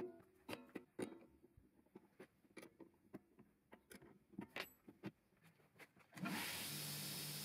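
Clicks and knocks of metal on metal and on wood as a steel knife-grinding jig is set down and a bowie knife blade is clamped into it. About six seconds in, a belt grinder's electric motor switches on and runs with a steady hum and hiss.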